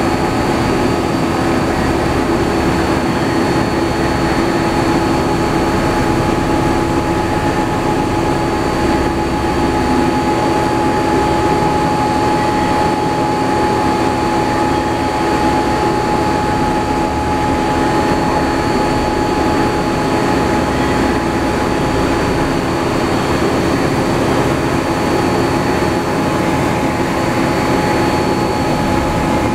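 Berardi ALTS130 C horizontal/vertical machining center running under power: a steady mechanical hum with several constant whining tones, unchanging throughout.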